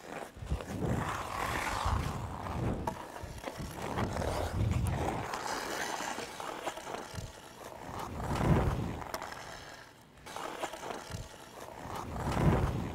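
Hockey skate blades carving and scraping on the ice in repeated swelling strokes as a skater pivots between forward and backward skating, with the loudest scrapes about two-thirds of the way through and near the end.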